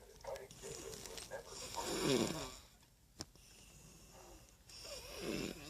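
A sleeping woman snoring: two long snores, each falling in pitch, one about two seconds in and another near the end.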